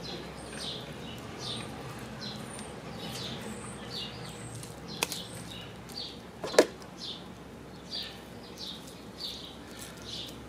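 Birds chirping, a string of short high falling notes about two a second, with a sharp click about five seconds in and a louder knock about a second and a half later.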